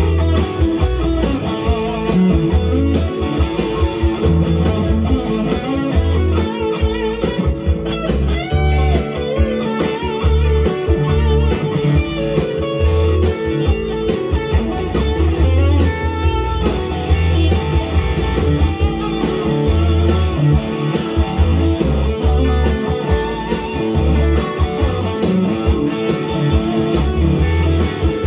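Harley Benton HB TE-30 BE Telecaster-style electric guitar played with a pick, with single-note lines and strummed chords going on without a break.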